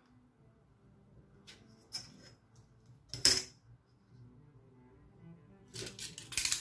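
Paper and plastic film being handled on a cutting mat, with a sharp clack a little over three seconds in as a steel ruler is laid down, and a cluster of handling knocks near the end. Soft background music underneath.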